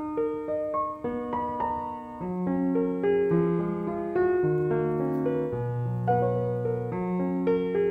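Background piano music: a gentle melody over a moving bass line, notes struck one after another at an even pace.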